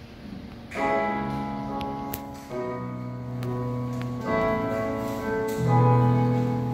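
A church praise band starts a song about a second in: sustained keyboard chords over a low bass, changing every couple of seconds, with a few light percussive ticks.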